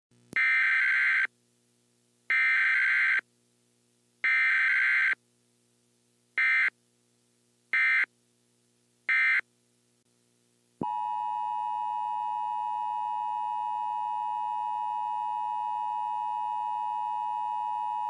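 Emergency Alert System SAME data bursts: three bursts of about a second each, then three short bursts. About eleven seconds in, the steady two-tone EAS attention signal begins.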